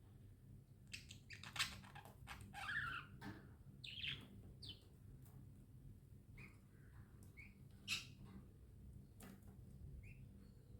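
Pet budgerigars chirping softly and sporadically, short scattered chirps mixed with a few sharp clicks, busiest in the first half.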